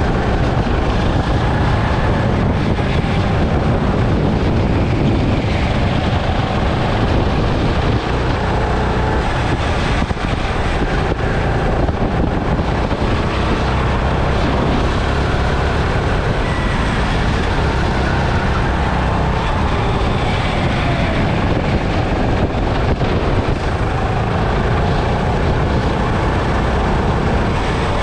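Sodikart hire go-kart engine running at speed, heard on board, its pitch rising and falling with throttle and speed through the corners.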